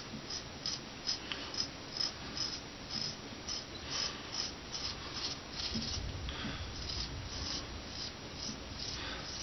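Straight razor scraping through beard whiskers in short, crisp strokes, about two a second.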